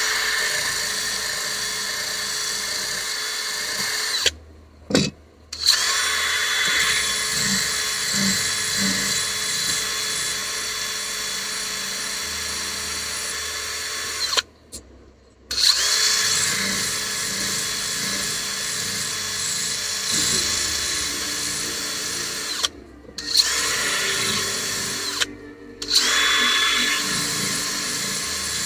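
Cordless drill spinning an abrasive attachment against a steel hatchet head, grinding to sharpen the blade. It runs in long stretches and stops briefly about four times.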